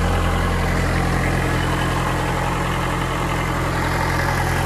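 Kubota F3060 front mower's diesel engine idling steadily with the parking brake set, running on without cutting out.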